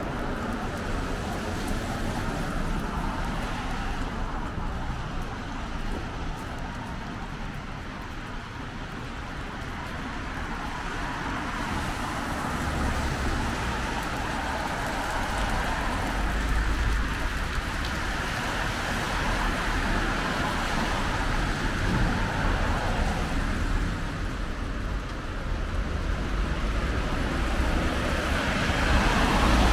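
Street traffic: cars driving past on a wet road, the tyres hissing on the rain-soaked asphalt under a low engine rumble, growing louder after about ten seconds as vehicles pass close by.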